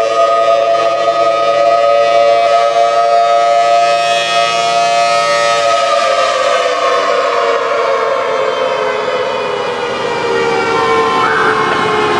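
Civil defense warning siren sounding a steady multi-tone wail, then winding down in pitch from about halfway through.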